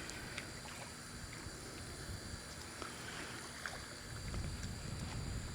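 Faint night-time ambience on calm water: a low steady rumble with a few soft clicks and thin high steady tones above it.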